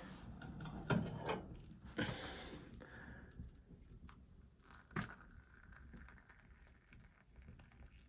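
Close handling noises: a few sharp knocks and crunchy rustles, loudest about a second in and again near the middle.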